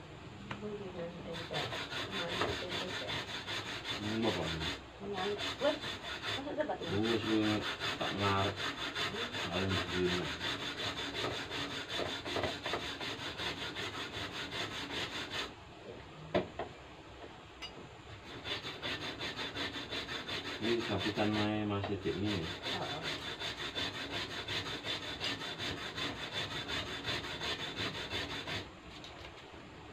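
Rapid, rhythmic scraping by hand against wood, in two long runs with a short pause about halfway and a stop just before the end.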